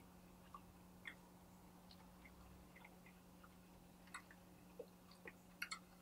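Near silence with faint scattered clicks of someone chewing beef jerky, a few more of them in the second half, over a steady low hum.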